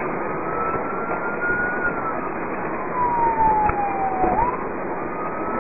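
Police car siren on a slow wail, its pitch climbing for about two seconds, sliding down, then swinging back up near the end. Steady road and engine noise from the car driving at speed lies underneath.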